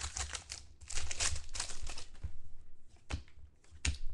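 Crinkling and tearing of a football trading card pack's wrapper as it is opened, most of it in the first half, followed by a few light clicks near the end as the cards are handled.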